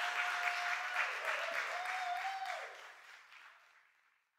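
Concert-hall audience applauding, with one long held cheer wavering in pitch over the clapping; the applause fades out near the end.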